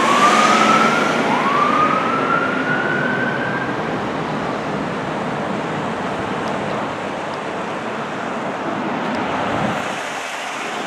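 Sirens of a fire engine and ambulance driving away, sounding as a few rising glides in pitch. They fade after about four seconds, leaving steady traffic noise.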